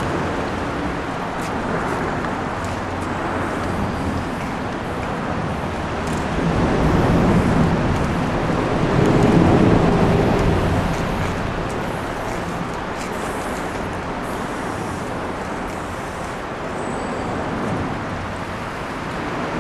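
Steady road-traffic noise, swelling twice near the middle as vehicles pass, with faint short hisses of a spray can over it.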